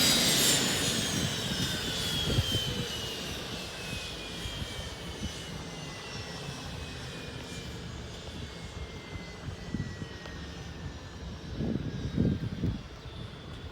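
Cessna Citation III's Garrett TFE731 turbofans spooling down after shutdown: a high whine falling steadily in pitch and fading. A few low rumbles come near the end.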